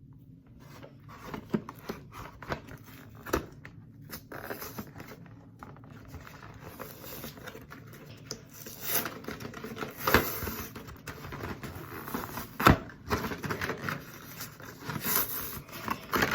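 Toy packaging being worked open by hand: on-and-off crinkling, scraping and tearing, with a few sharper clicks and snaps.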